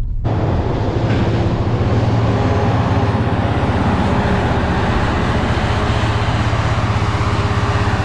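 Diesel engine of a red Case IH tractor running steadily under load as it pushes chopped earlage up a silage pile, a continuous low drone.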